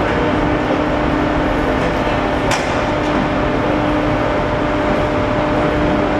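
Steady machinery noise in a large hall with a constant low hum, and one sharp click about two and a half seconds in.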